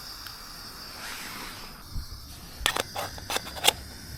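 A handful of sharp clicks and taps from cooking gear being handled, over a faint steady hiss.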